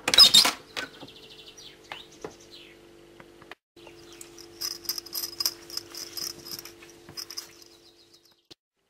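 A door latch clacking loudly as the handle is pressed and the door swings open, over a steady low hum. From about four seconds in comes a fast, high, insect-like chirring run of clicks lasting about three seconds.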